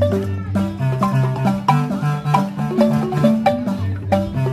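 Marimbas playing a fast, repeating pattern of short struck notes over a line of low bass notes.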